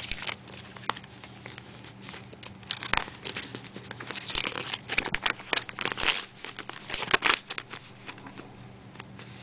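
Folded paper instruction leaflet being unfolded by hand, crinkling and rustling in quick irregular crackles, thickest in the middle few seconds.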